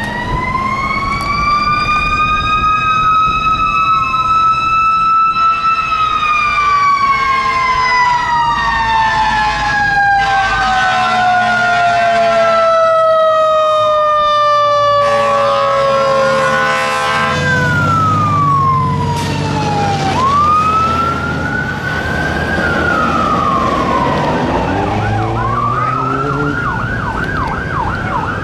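Several fire engine sirens sounding together as the engines respond code 3, with overlapping wails that rise and fall. One long tone falls slowly in the middle, and a fast yelp starts near the end. Engine noise from the heavy trucks runs underneath.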